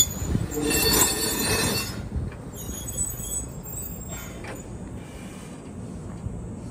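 Keihan 700 series train's wheels squealing as it slows to a stop at the platform. The high squeal is loudest for about the first two seconds, then fades away with a couple of fainter squeaks.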